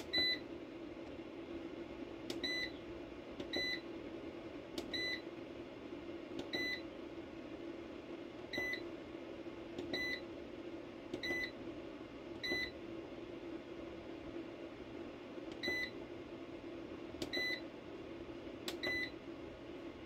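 MPP Solar inverter's front-panel buttons being pressed, each press giving a click and a short high beep, about a dozen spaced a second or two apart. A steady low hum runs underneath.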